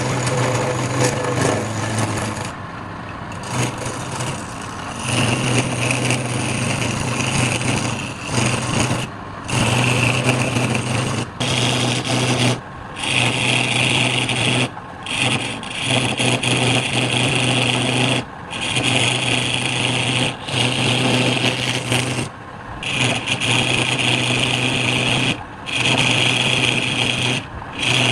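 Wood lathe running, with a steady low hum and a rasping rub of the spinning wood being worked. The sound breaks off briefly every one to three seconds.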